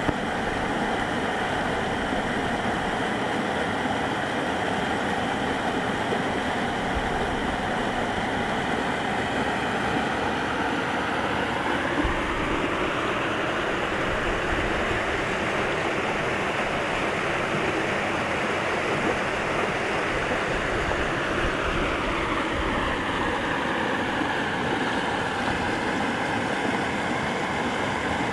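River rapids rushing over rocks: a steady, loud rush of white water. Its tone shifts for a while in the middle.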